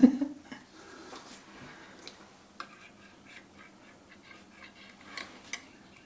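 Faint clicks and soft handling noises from a plastic squeeze bottle as barbecue sauce is squeezed out over raw ribs in a crockpot, with a few sharper ticks scattered through.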